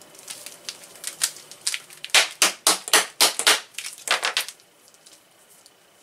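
Stiff insulated 12-gauge solid copper wires, joined by a wire nut, being swung and whipped about, clattering against each other and the table in a fast run of sharp clacks. The clacking stops about four and a half seconds in.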